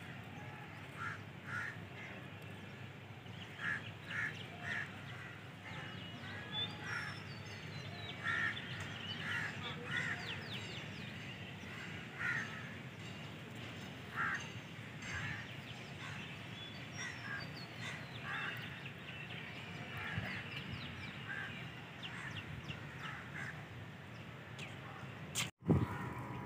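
Crows cawing, short calls repeated at irregular intervals, with smaller birds chirping higher up, over a steady low rumble.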